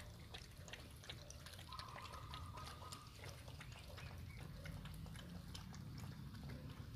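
Several puppies licking and lapping yogurt out of plastic cups: a quiet run of quick, wet, irregular clicking licks.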